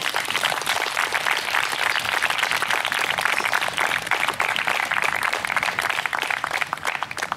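Crowd applauding: dense, steady clapping that builds over the first second and cuts off fairly suddenly.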